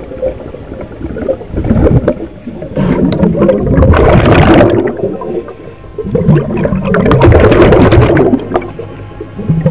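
A scuba diver's exhaled air bubbling out of the regulator underwater, in long gurgling bursts every few seconds, one per breath, with another starting near the end.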